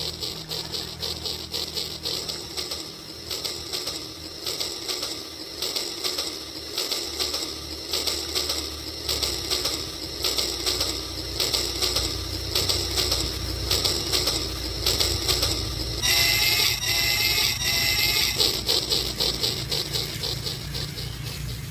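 Battery-powered Rail King toy train running on plastic track, with a rapid, steady clicking rattle from its motor and wheels. About three-quarters of the way through, three short tooting tones sound one after another.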